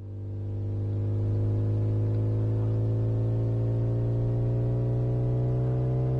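Test car's engine running flat out as the car accelerates: a low steady hum with a stack of overtones that swells over the first second and then slowly rises in pitch as the speed builds.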